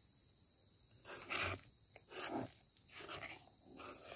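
A spatula stirring thick moong dal batter in a wok, giving faint, irregular scraping and squelching strokes about once a second after a quiet first second.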